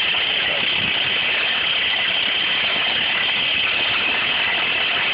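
Steady, unbroken machine noise with a strong high hiss and no pauses or strikes.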